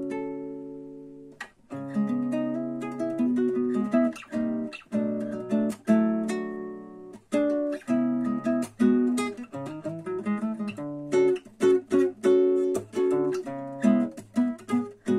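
An Almira MG 917 acoustic guitar being played. A chord rings and fades, then come struck chords and picked notes, quicker in the second half. Its owner finds the tone nice and the sustain fair, though the strings are poor.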